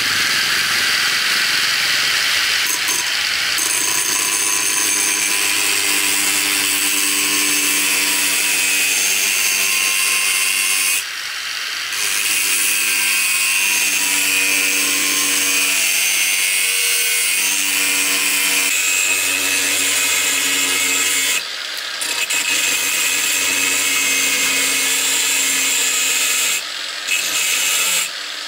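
Cordless angle grinder with a thin disc grinding the edge of a steel plate being shaped into a knife blade: a loud, steady, hissing grind over the motor's whine. It eases off briefly about eleven seconds in, again about twenty-one seconds in, and near the end.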